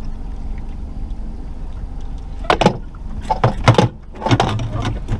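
Boat motor running steadily at trolling speed. About halfway through comes a run of loud, sharp knocks and clatter on the boat.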